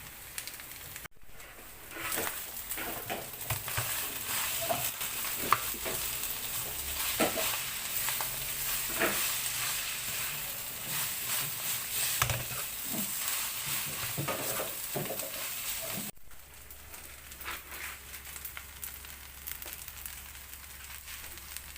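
Rice being stir-fried in a hot pan: a steady sizzle with the short scrapes and knocks of a spatula stirring. It starts abruptly about a second in and cuts off about sixteen seconds in, leaving a faint low hum.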